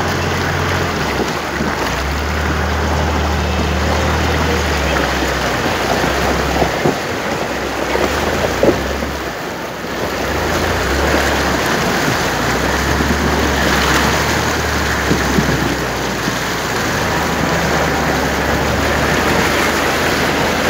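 A vehicle wading through a flooded road: floodwater surging and splashing along its side, over the steady low hum of its engine, which dips briefly about halfway through.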